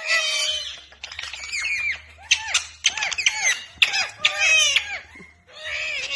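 Parrot giving a rapid series of short, squeaky calls that slide up and down in pitch.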